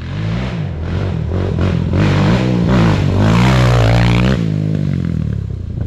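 Quad (ATV) engine revving, its pitch climbing and falling again and again, then easing off after about four seconds.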